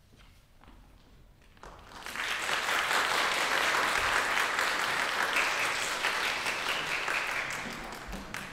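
Audience applauding, starting about two seconds in, swelling quickly and tapering off near the end.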